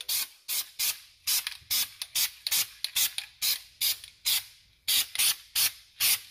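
Aerosol can of high-heat black spray paint hissing in rapid short bursts, about three a second, as it is sprayed in quick passes over a stove burner grate.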